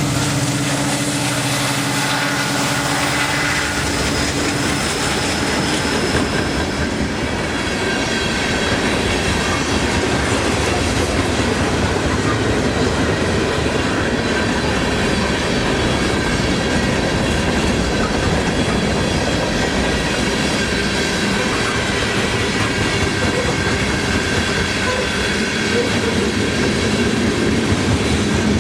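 Freight train rolling steadily past, its wheels clacking over the rail joints with some squeal from the wheels.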